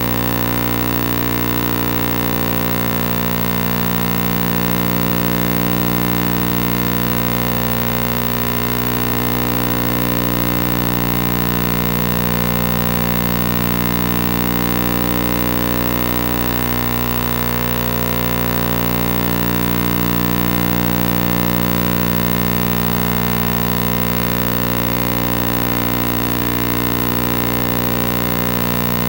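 A steady electronic drone of many held tones at once, with a slow, regular wavering and no change in level.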